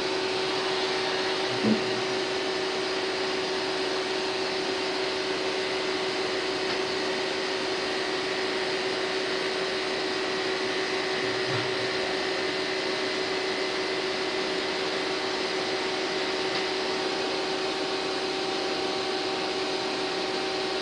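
CNC vertical machining centre running while it taps a hole: a steady mechanical whine over a hum. There is one short knock about two seconds in.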